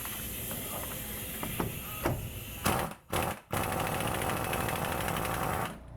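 Impact wrench hammering on the truck's front axle nut to undo it: a fast, steady rattle of blows in two runs, broken by a short pause about three seconds in.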